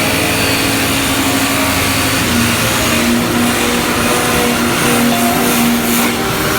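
Machinery running steadily: a constant noisy wash with a motor hum that shifts slightly up and down in pitch.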